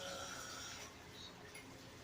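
A sleeper's noisy breath between snores: a breathy hiss for most of the first second, then fainter breathing.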